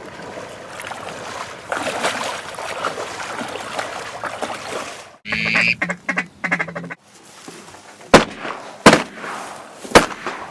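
Ducks quacking with loud, rapid duck calling in the middle, then three shotgun blasts about a second apart as the hunters shoot at the ducks.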